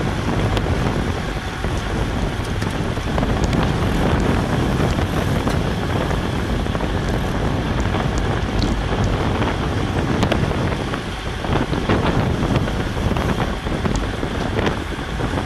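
Wind buffeting a bike-mounted GoPro's microphone at about 25 mph, a steady rushing roar with a few faint clicks scattered through it.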